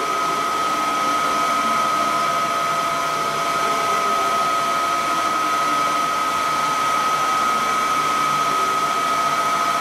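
Haas TL-4 CNC lathe running with its spindle at 140 RPM in low gear while the carriage traverses along the bed: a steady whirring hum with a constant whine on top.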